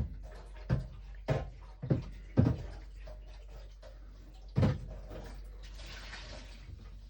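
Plastic coffee-machine water tank being handled during rinsing: five sharp knocks and clunks, then a brief rush of water near the end.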